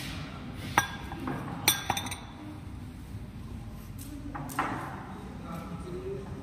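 Empty three-wick candle jars clinking against one another as they are handled on a crowded table: a few short, sharp clinks, most of them in the first two seconds, with one more about four and a half seconds in.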